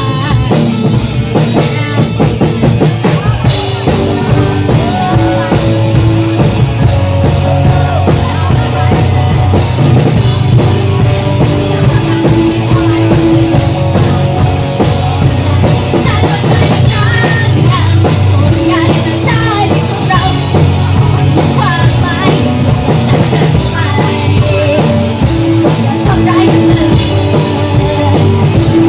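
Live rock band playing a song, with a drum kit and guitar.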